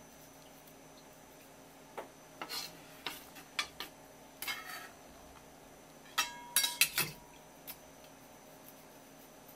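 Steel kitchen knife scraping and clicking along a whole striped jack and the wooden board beneath it, scraping off the scales. It comes as a run of short scrapes and clicks, with a louder cluster about six seconds in where the blade rings briefly.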